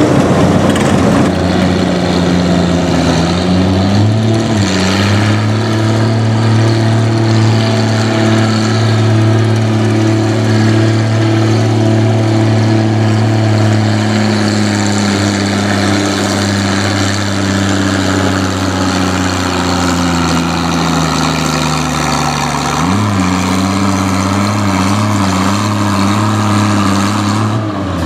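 Oliver 880 farm tractor engine pulling a weight-transfer sled at full throttle. Its note rises about four seconds in, holds steady, then slowly sags as the sled's load builds. About 23 seconds in it drops suddenly as the throttle comes off at the end of the pull, and it runs on lower and uneven.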